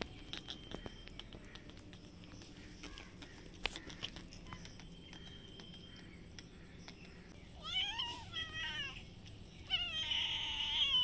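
Cat meowing: two long, wavering meows, the first about eight seconds in and the second near the end.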